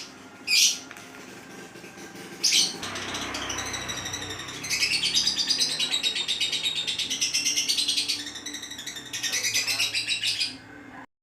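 Lovebirds calling: a few sharp, shrill chirps in the first three seconds, then rapid, high chattering in two long runs.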